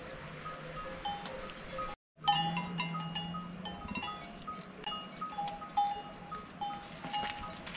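Metal livestock bells on a grazing herd of water buffalo and cattle, clinking and ringing irregularly as the animals move. The sound drops out briefly about two seconds in, then a low steady hum comes in under the bells for a couple of seconds.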